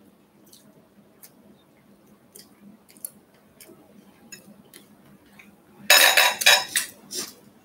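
A metal fork clicking and scraping against a glass plate while someone eats, in scattered light taps. A louder, rough burst of a few strokes comes about six seconds in.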